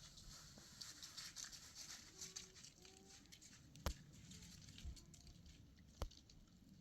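Near silence with a faint, uneven crackle and two sharp clicks, about four and six seconds in.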